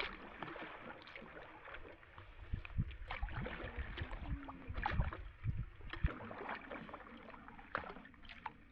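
Canoe being paddled: paddle strokes and water splashing, with scattered short knocks.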